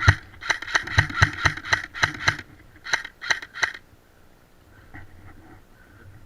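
Airsoft replica firing a rapid string of single shots, about four a second with a brief pause partway, about a dozen sharp clicks in all, stopping near the four-second mark.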